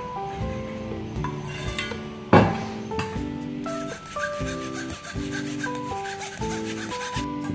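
A metal spoon scraping and rubbing against a wire-mesh sieve as it presses egg mixture through, with one loud scrape about two and a half seconds in and repeated rasping strokes after it. Background music with a plucked melody plays under it.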